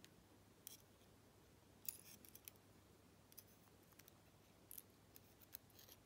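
Faint, scattered metallic clicks and ticks of small steel tools working at the pin chambers of a brass American 1100 lock core, as serrated spool pins are handled.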